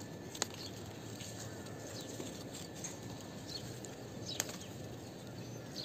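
Leaves and twigs rustling faintly as a hand handles the branches of a leafy shrub, with two sharp clicks, one near the start and one near the end.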